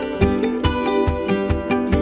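Background music: plucked, guitar-like strings over a steady beat.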